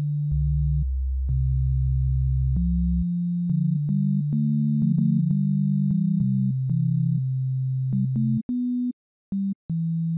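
Software synthesizer in FL Studio playing low, pure-toned notes that step up and down in pitch. They break into short separate notes near the end.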